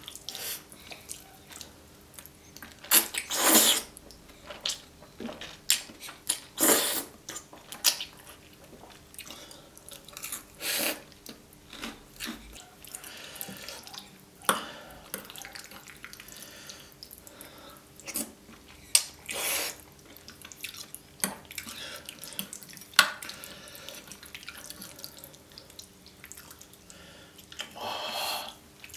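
Close-miked wet eating of creamy fettuccine carbonara: loud noodle slurps and smacking chews at irregular intervals, with a few sharp clicks of a fork on the plate.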